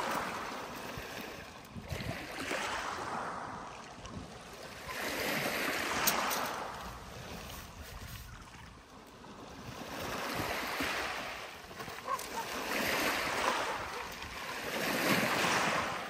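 Storm wind blowing in strong gusts, a rushing noise that swells and fades every two to three seconds, with a couple of sharp ticks in between.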